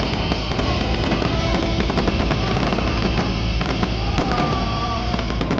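Fireworks display going off, a dense run of bursts and crackles, mixed with loud show music.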